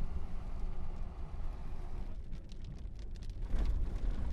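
Cabin noise inside a moving storm-chase truck: a steady low rumble of engine and road. A few faint clicks, then a louder low thump about three and a half seconds in.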